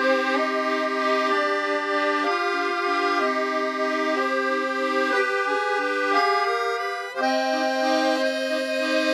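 Instrumental background music of held, sustained chords that change every second or so, with a brief break about seven seconds in.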